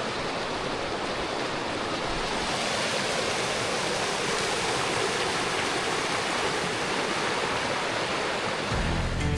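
River rapids rushing, a steady full roar of fast-flowing water. Guitar music comes in near the end.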